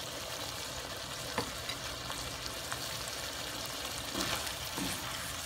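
Pinakbet vegetables with pork belly sizzling in a nonstick wok, a steady hiss. About four seconds in, a wooden spatula stirs them, with a few scrapes and clatters against the pan.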